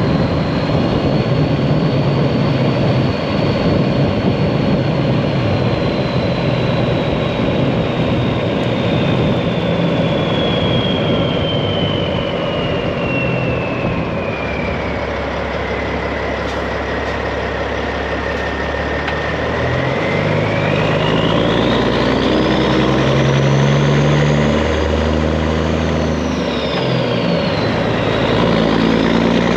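Straight-piped Peterbilt 389 semi truck's diesel engine running, with a thin high whistle. The whistle sinks slowly over the first twenty seconds, then climbs sharply as the engine note rises in steps, dips again near the end and starts climbing once more.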